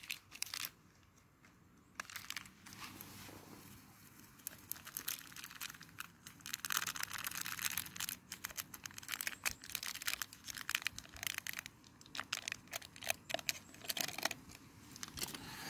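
Plastic coffee sachet crinkling and rustling in the hand as it is shaken out over a mug, a run of irregular crackles starting about two seconds in and growing busier towards the end.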